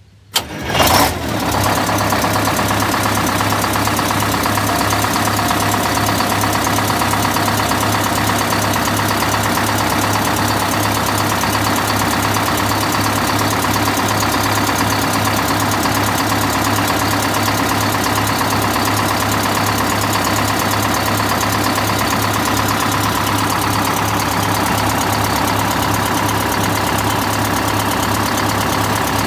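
Detroit Diesel 8V71 two-stroke V8 bus engine starting about half a second in, then settling into a steady idle, its valves and injectors freshly adjusted.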